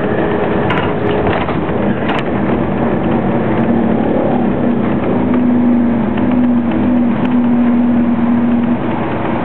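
Scania OmniCity double-decker bus's diesel engine and drivetrain running as the bus drives along, heard from inside on the upper deck. Its drone climbs a little in pitch a couple of seconds in, holds steady, then falls away near the end, with a couple of short rattles early on.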